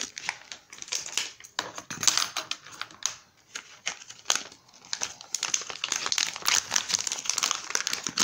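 Plastic food packaging crinkling and rustling as it is handled and opened, in irregular crackles with a brief pause about three seconds in.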